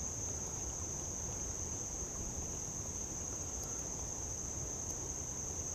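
Insect chorus, crickets or similar, giving one continuous high-pitched buzz that holds steady, over a low steady rumble.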